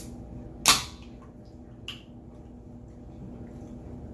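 Aluminium can of Poppi prebiotic soda cracked open: one sharp pop and short hiss under a second in, then a small click.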